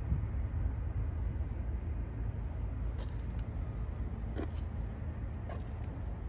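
Corvette-badged V8 in a 1998 Chevrolet Tahoe idling with a low, steady rumble. A few light clicks sound in the second half.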